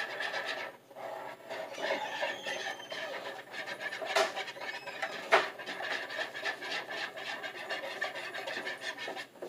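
Whisk beating thin pancake batter in a bowl: a fast, steady scraping against the bowl, with two sharper knocks about four and five seconds in.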